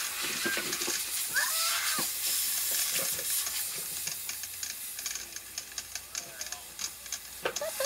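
A steady hissing noise that starts suddenly, breaking up into scattered crackles after about five seconds, with a voice calling out briefly about a second and a half in.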